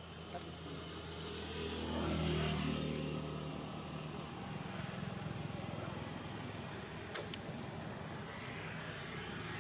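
A motor vehicle's engine passing on the road, swelling and rising in pitch to its loudest about two seconds in, then carrying on as a steady low hum. A few sharp clicks come about seven seconds in.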